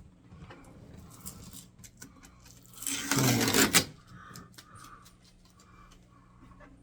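Handling noise over a steady low hum: a few light clicks and knocks, then one loud burst of noise about three seconds in that lasts about a second.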